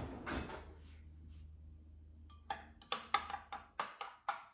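A stir stick clinking against a glass as a drink is stirred: a quick run of about eight light clinks over the last two seconds.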